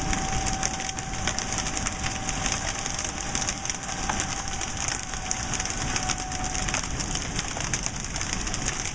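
Golf-ball-size hail pelting a deck and its surroundings: a dense, steady clatter of impacts. A distant storm warning siren holds a faint steady tone through most of it and fades out near the end.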